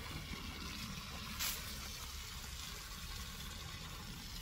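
Water spraying from a garden hose onto plants and soil, a steady hiss with a brief louder rush about a second and a half in.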